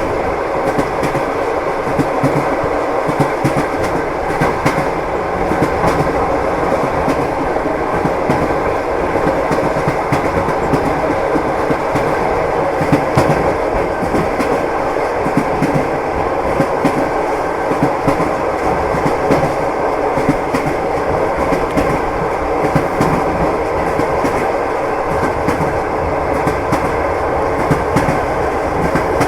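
Train wheels clattering over the rails as the train runs at a steady pace, with a continuous rumble and frequent irregular clicks and knocks.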